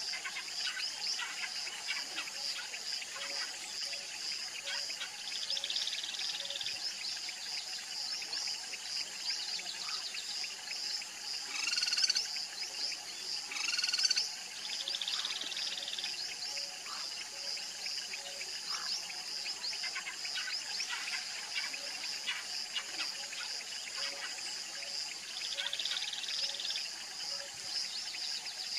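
Steady high pulsing chorus of calling frogs and insects, with brief buzzy trills now and then. Two louder bird calls stand out about 12 and 14 seconds in.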